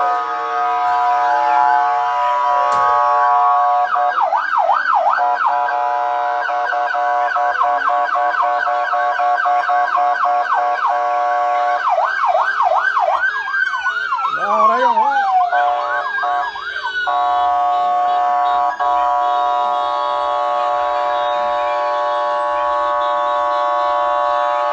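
Sirens from a passing vehicle caravan: a steady held multi-note tone throughout, and an electronic yelp siren sweeping rapidly up and down, two or three sweeps a second, from about four seconds in until about seventeen seconds, with a long falling wail near the middle.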